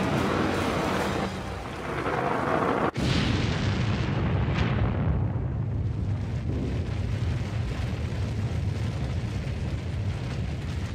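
Sound-designed nuclear blast. A rushing noise runs for about three seconds and cuts out for an instant. Then a sudden explosion comes in, its hiss fading downward over a couple of seconds into a long, deep rumble.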